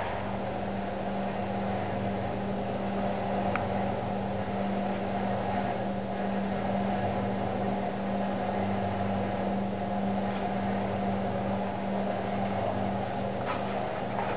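A steady low hum with two even tones under a constant hiss, unchanging in level.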